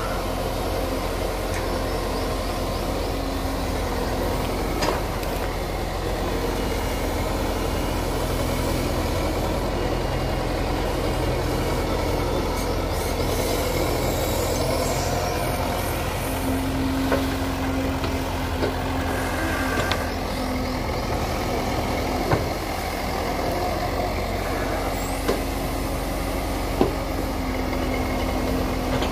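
Komatsu PC100 hydraulic excavator's diesel engine running steadily under digging load, with a pitched whine that comes and goes. A few sharp knocks from the bucket and arm are scattered through it.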